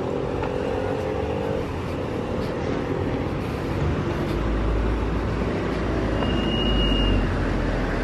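Cars driving by on a street, engine and tyre noise swelling to its loudest about six to seven seconds in. A brief thin high tone sounds near the end.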